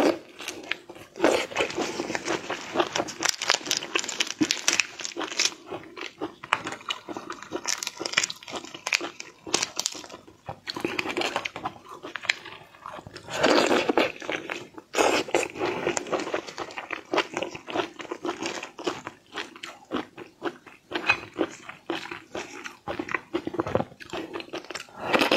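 Close-miked chewing and biting of raw shrimp: a dense run of wet mouth clicks and crunches with short pauses between bites.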